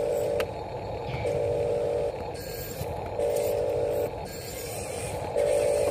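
Huina RC dump truck's small electric drive whirring steadily, with a beep of just under a second repeating about every two seconds, typical of the model's warning-beeper sound effect.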